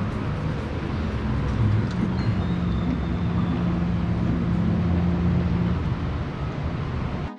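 Wind buffeting the microphone, a loud, steady low rumble, with a steady low hum through the middle few seconds; it stops abruptly at the very end.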